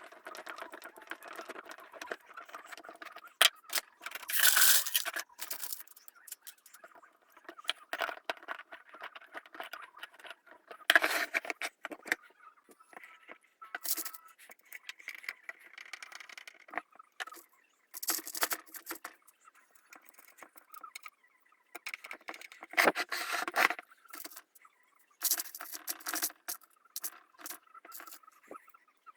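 Objects being handled, with irregular scraping and rattling in short bursts of up to a second, mixed with sharp clicks.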